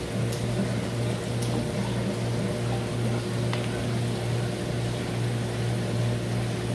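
Steady low hum of aquarium pumps and filtration, with a few faint ticks.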